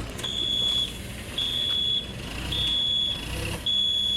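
Forklift backup alarm beeping: four high single-tone beeps, each about half a second long, about one a second, with an engine running underneath.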